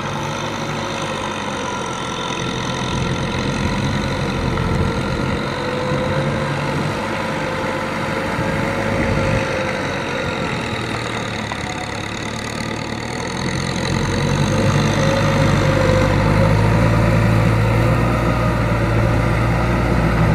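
Kubota farm tractor's diesel engine running steadily under load as its rear rotary tiller churns a flooded rice paddy, with a wavering whine over the engine note. About two-thirds of the way through the engine grows louder and deeper.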